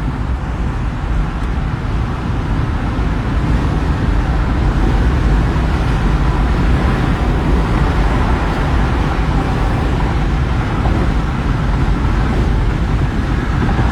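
Steady road and engine noise of a moving car, loud and heavy in the low end.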